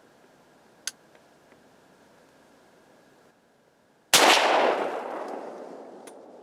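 Muzzleloader rifle firing once: a single loud boom whose echo rolls away over about two seconds. A sharp click sounds about a second in.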